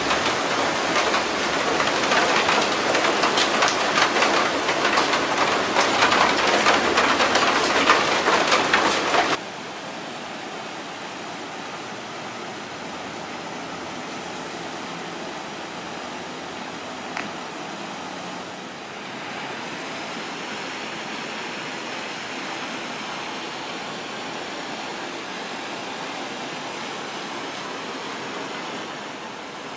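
Heavy rain falling, a dense steady patter, for about the first nine seconds; then it cuts suddenly to a much quieter steady outdoor hiss.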